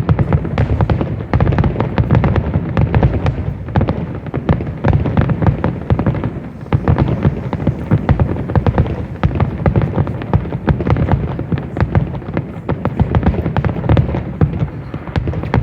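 Fireworks finale: a dense, continuous barrage of aerial shell bursts and crackling reports, with deep booms underneath, easing briefly about halfway through before building again.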